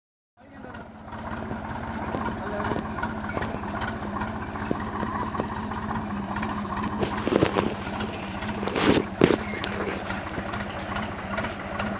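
Tractor engine running steadily as it pulls a seed drill through a stubble field, a constant low hum with a fast even pulse. A few louder knocks and clatters come about seven to nine seconds in.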